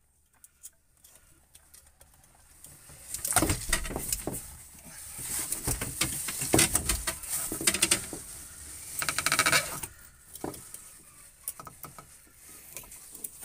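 Splashing and knocking as a hooked tope shark is handled against a boat's hull and a hook is worked out of its mouth, busiest from about three to ten seconds in, with a quick run of rapid clicks around nine seconds.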